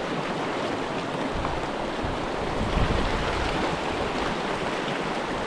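Mountain creek water rushing and babbling steadily.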